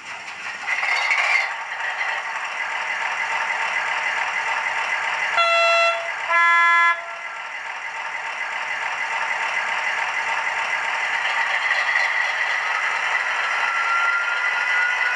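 Diesel engine sound of an H0 model Cargolink DE 2700 locomotive, played by its ESU sound decoder through the model's small speaker: the engine starts up in the first second or two and settles into a steady idle. Two short horn blasts sound about five and a half and six and a half seconds in, the second lower in pitch.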